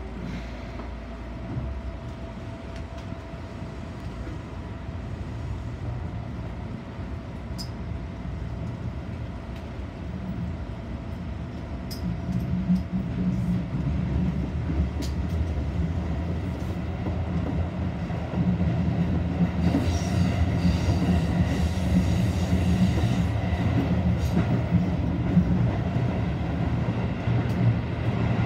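Electric commuter train running, heard from inside behind the driver's cab, with steady rumbling wheel and motor noise. It grows louder about halfway through and again later, and a few sharp clicks stand out.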